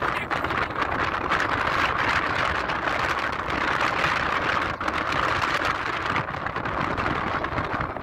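Strong wind rushing across the microphone in a steady, even roar of noise that starts abruptly.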